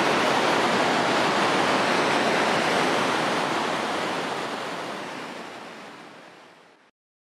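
Steady rush of fast-flowing river water deep in a cave gorge, fading out over the second half until it stops shortly before the end.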